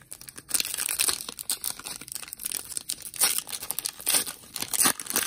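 Foil wrapper of a Disney Lorcana booster pack being torn open by hand, crinkling and crackling with sharp rips throughout.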